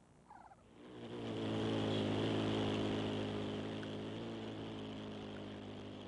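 A motor's steady low hum on one unchanging pitch, swelling about a second in and slowly fading.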